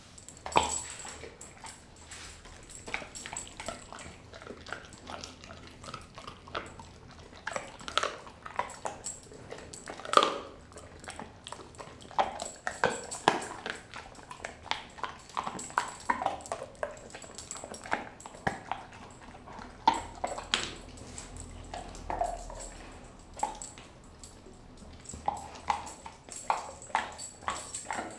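Doberman chewing and crunching raw meat and bone, with irregular sharp crunches and wet clicks of the teeth throughout.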